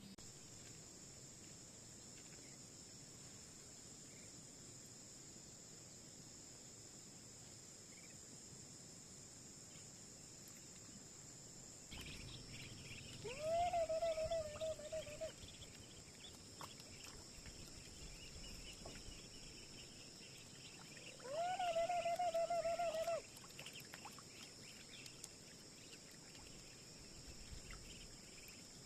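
Steady high-pitched insect chorus of crickets or cicadas. About 13 seconds in and again about 21 seconds in, an animal gives a loud, level, two-second call, with some rustling around the calls.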